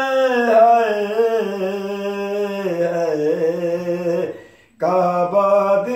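A man singing a Sufi kalam solo, without instruments, drawing out long wavering held notes that glide up and down. He breaks off briefly for a breath about four and a half seconds in, then goes on.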